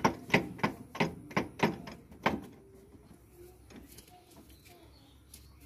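Metal parts knocking and clanking against each other inside a tractor's differential housing as the crown wheel and pinion gears are worked into place by hand: about eight sharp knocks in the first two seconds or so, then only faint small knocks.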